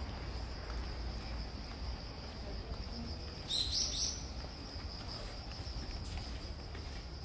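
Outdoor ambience: a steady high-pitched insect drone, with one short bird chirp about halfway through, over a low rumble.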